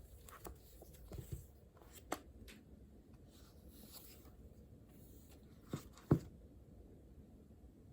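Quiet desk sounds of writing on paper, with a few soft knocks and clicks scattered through; the loudest knock comes about six seconds in.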